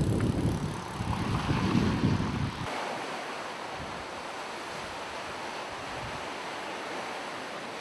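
Strong wind buffeting the microphone in gusts with a deep rumble; about two and a half seconds in it cuts to a steadier, softer hiss of wind.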